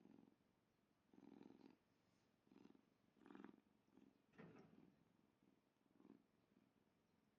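Domestic cat purring faintly, in short rhythmic bursts about once a second that die away near the end.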